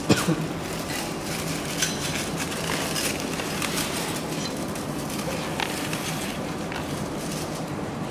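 Handling noise of a paper sheet being fed through a heat press's rollers: scattered rustles and light clicks over a steady low hum, with a sharp knock and a short squeak right at the start.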